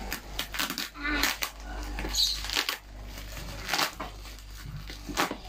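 Scissors snipping through clear plastic parcel wrap, with crinkling of the plastic: a string of irregular sharp clicks and crackles.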